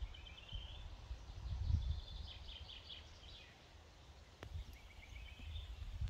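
Small songbirds singing short, high trilled phrases, three times, over a steady low rumble. A single sharp click comes a little past halfway.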